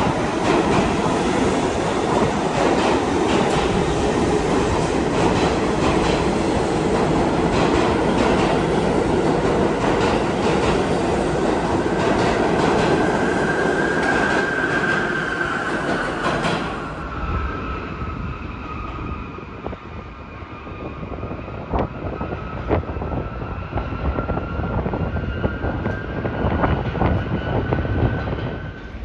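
R68 subway train running through an underground station: a loud rumble with wheels clicking over rail joints and a faint squeal. About 17 s in, the sound drops abruptly to a quieter, distant rumble with occasional clicks and a thin steady whine, as a train is heard out in the tunnel.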